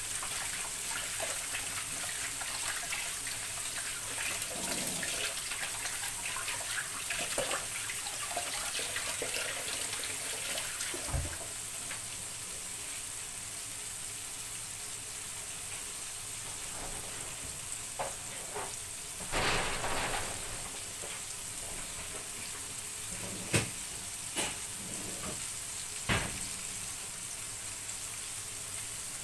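Batter-coated small fish frying in hot oil in a frying pan: a steady crackling sizzle, busier for the first ten seconds or so and then settling to a softer hiss. A few sharp clicks and a short louder burst of crackle come a little past the middle.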